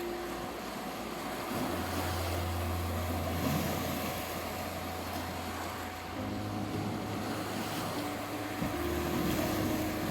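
Sea waves washing on a beach under soft ambient meditation music. A steady 741 Hz tone runs through it, and low held notes change every few seconds.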